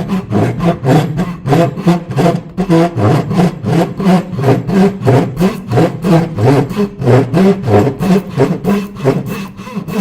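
Tenon saw cutting into the end of a square wooden blank held in a vise, in quick even strokes, about three a second. It is sawing a shallow kerf along a diagonal so that the teeth of the lathe's drive spur can bite into it.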